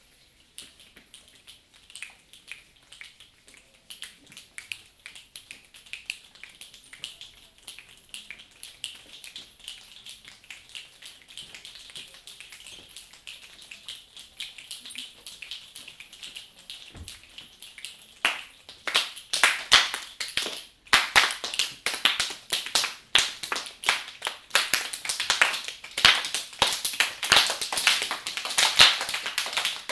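A class of students making a rain sound with their hands: many scattered finger snaps and light taps that grow denser, like rain starting. About 18 seconds in it turns abruptly into much louder, fast clapping, like a heavy downpour.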